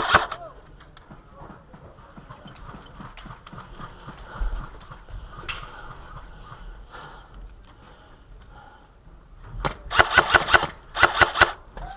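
Airsoft rifle firing two short full-auto bursts of rapid sharp cracks about three-quarters of the way in, one right after the other. Fainter scattered shots of distant fire come before them.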